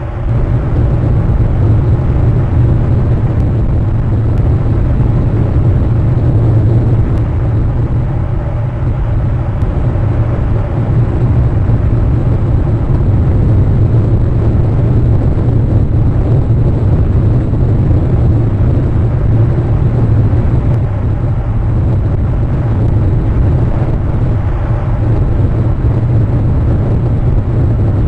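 Steady, loud low rumble with a hiss above it: wind buffeting an outdoor webcam microphone, no bird calls.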